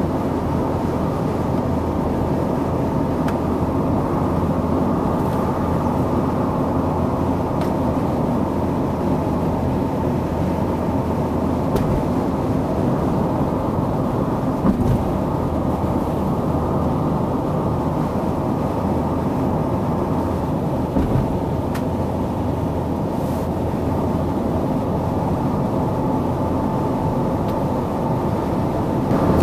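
Steady engine and tyre noise inside a car's cabin while driving at motorway speed.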